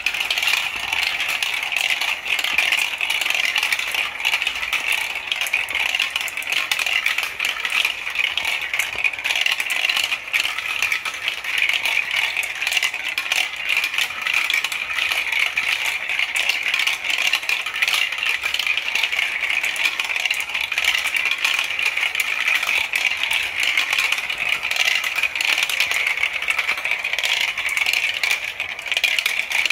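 Glass marbles rolling through plastic marble-run chutes and curves, a continuous dense rattle of small clicks.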